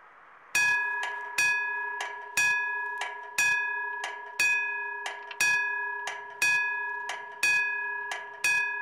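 Old Siemens level-crossing bell starting up about half a second in: a rapid clanging of strikes, about two a second alternating loud and softer, with the bell's tone ringing on between them. It is the warning bell of the crossing being switched on.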